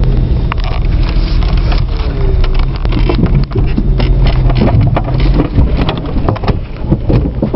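Off-road vehicle's engine running low and steady as it crawls along, with branches and brush repeatedly knocking, scraping and cracking against the body.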